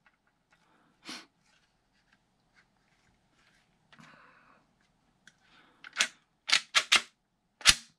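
Sharp plastic clicks from a 3D-printed PLA folding airsoft-gun body being worked by hand: one click about a second in, a faint scrape of plastic parts around four seconds, then a quick run of five clicks near the end, the last the loudest.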